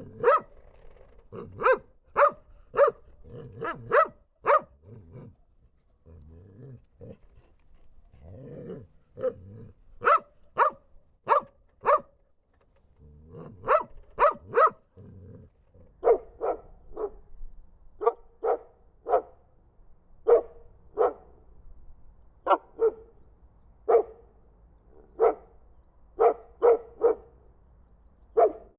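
Dogs barking in repeated bursts of several sharp barks, about half a second apart, with short pauses between the bursts.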